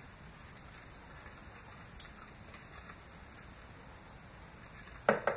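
Mostly quiet room tone while a carton of cream is emptied into a blender jar, with a few faint soft clicks. A short, sharp sound comes about five seconds in.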